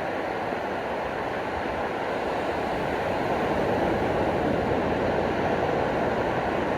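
Ocean surf washing onto a beach: a steady rush of breaking waves that swells a little about halfway through.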